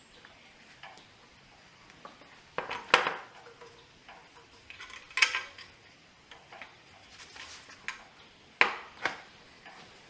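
Metal hand tools and fittings clinking and knocking against each other during hands-on mechanical work. There are three louder clanks about three, five and eight and a half seconds in, with lighter taps between.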